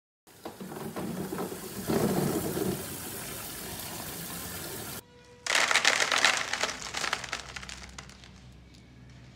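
Running water splashing over a basin of green santol fruit being washed. About five seconds in, after a brief break, dried santol pieces rattle down onto a woven bamboo tray in a quick cascade of clicks that thins to a few scattered ticks.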